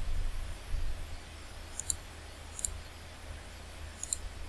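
Computer mouse clicking: a few sharp clicks about a second apart, the last two close together, over a low background rumble.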